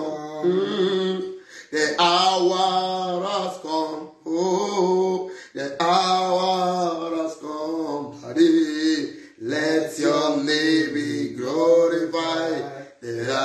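A man singing a chant-like worship song solo, in held phrases of a second or two broken by short pauses.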